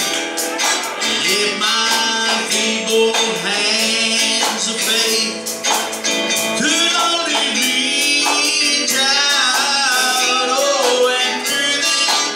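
A man singing a gospel song to electric guitar, with a steady beat of high, jingling percussion.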